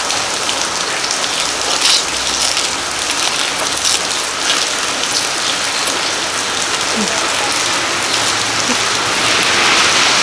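Steady rain falling, with separate drops striking close by now and then.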